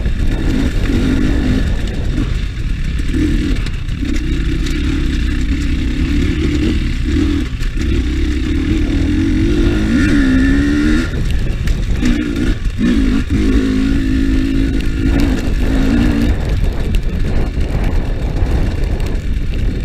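GasGas EC300 two-stroke enduro motorcycle engine running as the bike is ridden up a rough track, its pitch rising and falling as the throttle opens and closes.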